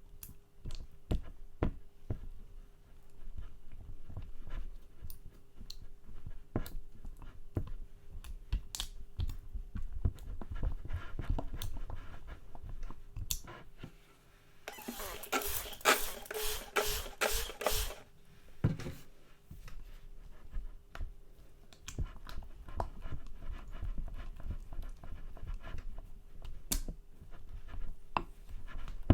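Glue-based (Bond) slime being squeezed and stretched by hand: sticky, wet squishing with scattered small clicks and pops. The clicks grow dense and louder for about three seconds around the middle.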